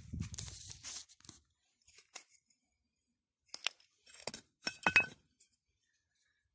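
Loose stones and pottery shards scraping and clinking in a pit of rubble: a rough scrape in the first second, then scattered sharp clinks, the loudest about five seconds in with a short ring.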